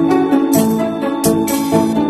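Background music: the instrumental part of a pop song with a steady beat.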